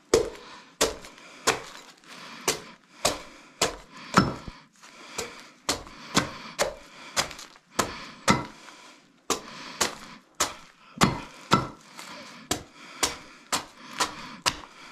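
A large knife chopping a pumpkin into chunks, its blade striking through the flesh onto a stone slab beneath. The chops are sharp and come in a steady run of about two a second.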